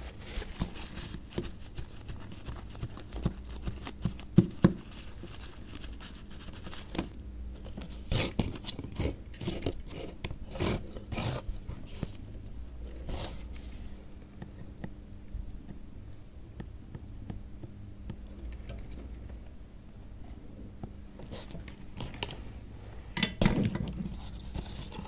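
Scattered small clicks, taps and short scrapes of small tools being handled, clustered in a busy stretch partway through and again near the end, over a steady low hum.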